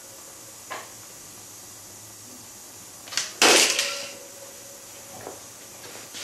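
A wooden lever arm bolted to the hub of a Thermodyne permanent-magnet alternator swings down when let go, ending in a click and a loud knock about three and a half seconds in with a short metallic ring after it; a few light clicks come before and after. The alternator's cogging is too weak to hold the arm level.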